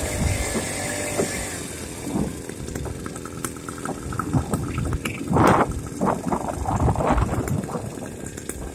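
A small motorized-bicycle engine running, its steady note dying away a second or two in; after that come irregular low rumbles and rattling bursts with a few sharp clicks.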